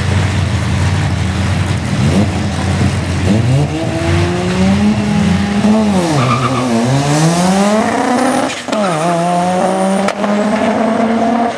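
Two drag cars, a turbocharged VR6-swapped Nissan S14 Silvia and a Mazda FD RX-7, revving at the start line, then launching hard about six and a half seconds in. Engine pitch climbs steadily and drops at two gear shifts, one near eight and a half seconds and one near ten seconds.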